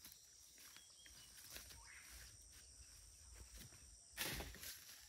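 Near silence: faint outdoor ambience with a few faint high chirps about a second in and a brief scuffing noise, about half a second long, just after four seconds.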